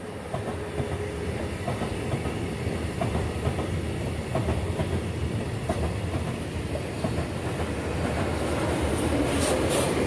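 Freight train of tank wagons rolling past close by: a steady rumble of wheels on rails with irregular clicks as the wheels run over the rail joints. It grows a little louder with sharper, higher rattling near the end.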